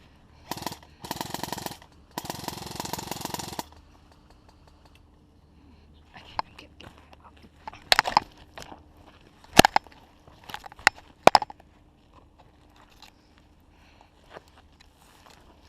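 Airsoft gun firing full-auto: a short burst, then two longer rapid bursts of fast clicking shots. Scattered sharp single cracks follow a few seconds later.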